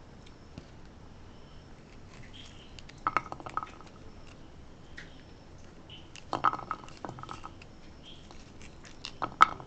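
Pomegranate arils being prised out with a small metal tool and dropping onto a ceramic plate: three bursts of small clicks and taps, a few seconds apart.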